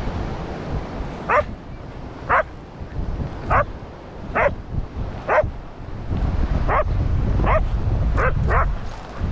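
A dachshund barking repeatedly: about nine short, sharp barks, each dropping in pitch, roughly one a second and coming quicker near the end. Wind rumbles on the microphone underneath.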